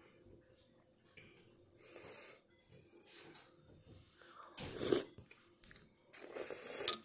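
A person slurping noodles and broth from a bowl: a few short, breathy sucking slurps, the loudest about five seconds in.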